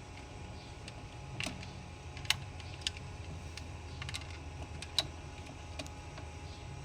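A handful of sharp, irregular clicks, about seven in all, over a low steady hum.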